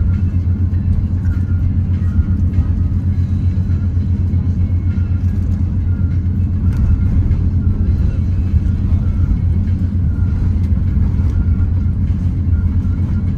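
Cabin noise in an Airbus A350-900 taxiing: a steady low rumble from the Rolls-Royce Trent XWB engines at taxi thrust and the airframe rolling over the taxiway.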